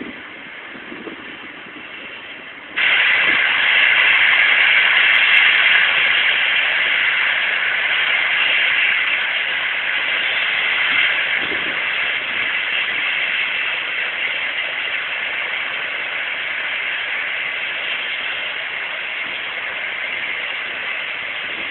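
Steam locomotive letting off steam: a loud hiss that starts suddenly about three seconds in and slowly fades, heard through an old mobile phone's tinny microphone.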